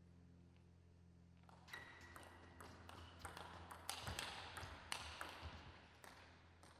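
Table tennis rally: the celluloid ball clicking off the rubber bats and the table in a quick run of sharp hits, loudest in the middle of the rally, over a steady low hum.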